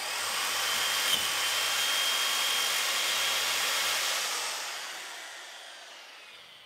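Old corded Black & Decker electric drill running an 8.5 mm bit through a soft aluminium casting, drilling out a stripped thread: a steady whirring noise with a faint high whine, dying away over the last few seconds.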